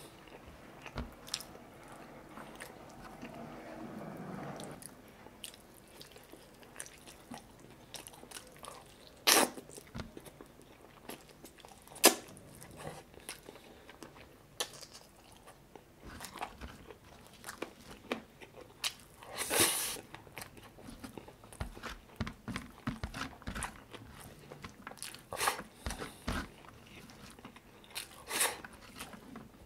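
A man chewing and biting into spicy chicken adobo and rice eaten by hand: steady wet chewing broken by several loud, sharp crunchy bites.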